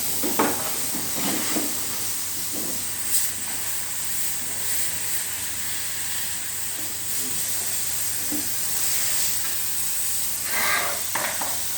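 Steady high hiss of a water spray jet washing down an air conditioner during a water service, with a few brief knocks.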